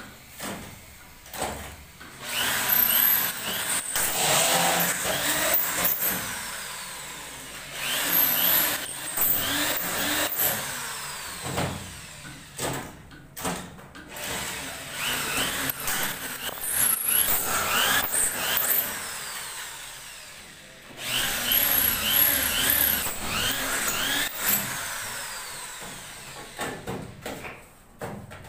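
Power drill driving screws up into ceiling boards, running in repeated bursts of a few seconds with short pauses between them.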